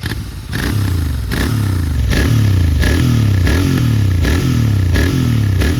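A GT motorcycle on its stock exhaust revved in short blips, about eight in a row. Each blip spikes the engine up and lets it fall straight back, at a steady rhythm of roughly one every three quarters of a second.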